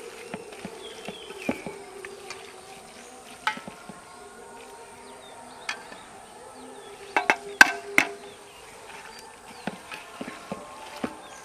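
Insects buzzing steadily, with scattered sharp clicks and knocks and a cluster of louder clinks about seven to eight seconds in.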